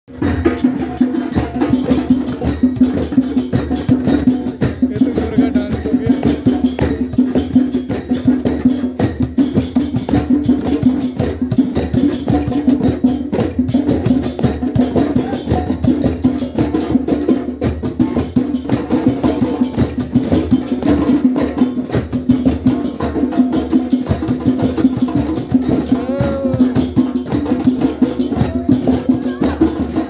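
A group of djembe hand drums played together in a drum circle, a fast, continuous stream of strokes with no break.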